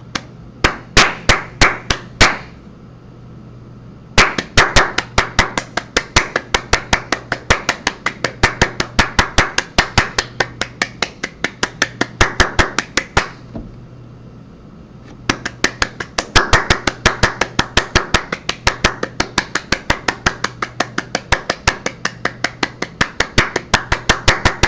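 Fast runs of sharp knocks, about five a second, in three bursts with pauses of about two seconds between them.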